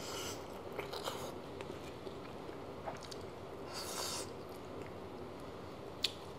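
Eating sounds of a person biting and chewing on a crab claw, in a few short bursts, with a sharp click near the end.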